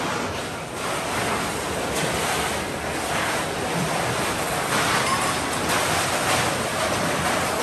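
Busy communal dishwashing: a steady din of many steel plates and dishes clattering and being stacked, with short sharper clashes standing out now and then.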